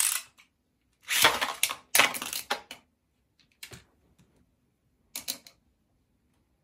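Beyblade spinning tops clashing and rattling against each other in a plastic stadium, a dense loud clatter about a second in as one top, Wonder Valtryek, bursts apart. A few separate plastic clicks follow as the pieces are picked up.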